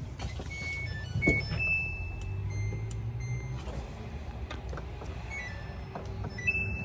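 Samsung DV48J7700EW electric dryer running, its drum motor a low steady hum that sounds normal, with a few short electronic beeps of differing pitch from the control panel.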